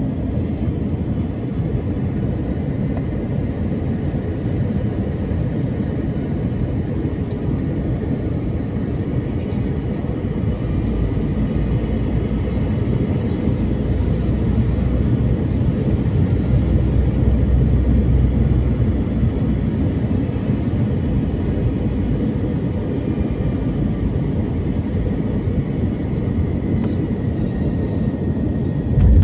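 Airliner cabin noise on a night landing approach: a steady, low-pitched mix of engine and airflow noise that swells slightly around the middle.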